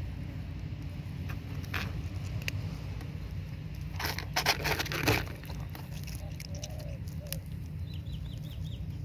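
Kitten crunching dry kibble: scattered small clicks, with a louder run of crunching about four to five seconds in. A steady low rumble lies underneath, and a few quick high chirps come near the end.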